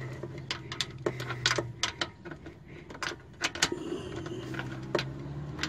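Irregular metallic clicks and taps of a long socket extension with a universal joint knocking against metal as it is guided down onto a sway bar link bolt, over a low steady hum.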